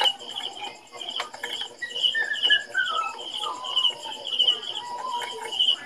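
Birds chirping: a high chirp repeats about twice a second, and a falling run of whistled notes comes about two seconds in. A few light metallic clicks come from parts and pliers being handled.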